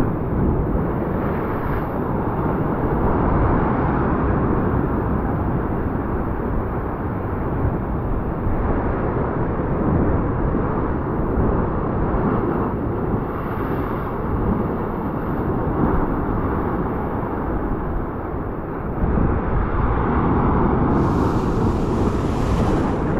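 Ocean surf breaking against rock ledges below the cliffs, a steady rushing noise.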